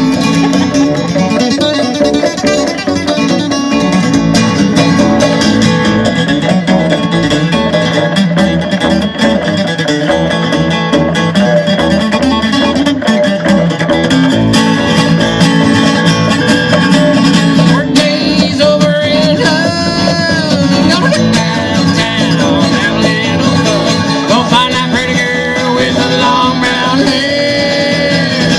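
Live acoustic music: a strummed acoustic guitar over a plucked upright bass, with a man singing at times, around twenty seconds in and again near the end.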